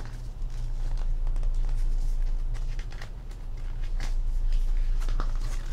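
Glossy photo-book pages being turned by hand, a few short paper rustles and flaps, over a steady low hum.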